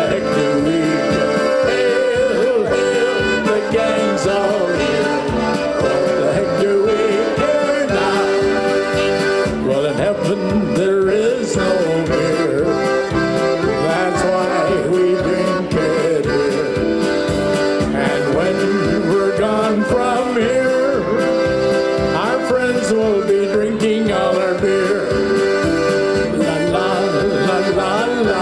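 Polka played live on accordion with keyboard accompaniment over a steady, even beat.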